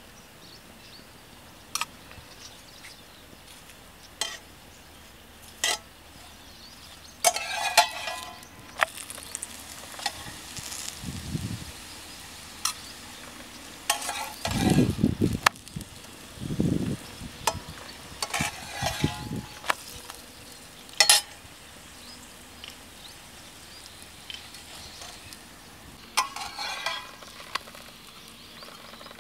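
Paratha frying in ghee in an iron pan, sizzling, while a metal spatula scrapes and taps against the pan as it presses and turns the bread. There are scattered sharp clicks and a few dull thumps midway through.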